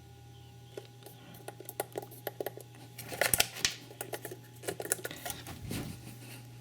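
Irregular small clicks and scratching close to the microphone, busiest in the middle, over a steady low electrical hum.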